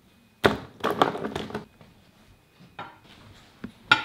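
Palette knife scraping and clinking against a paint palette as paint is mixed: a busy run of scrapes from about half a second in, a softer scrape near three seconds, and a sharp click just before the end.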